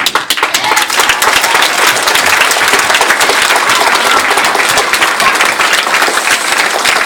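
Audience applauding: dense, loud clapping that breaks out suddenly and holds steady throughout.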